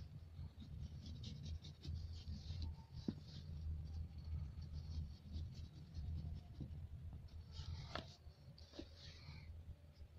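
Pastel stick scratching across paper in short repeated strokes, with a couple of light knocks, over a low steady hum.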